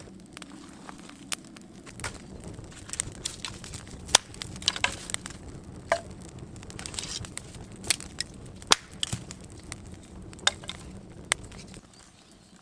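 Small campfire of dry sticks crackling, with irregular sharp pops over a low steady rush of flame. It falls quieter near the end.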